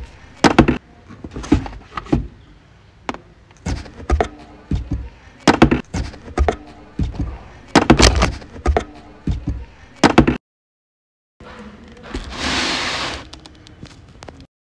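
A blade slitting the packing tape on a cardboard box, with repeated sharp knocks and scrapes against the cardboard. After a second of silence, a louder rustle of cardboard flaps and paper inserts as the box is opened.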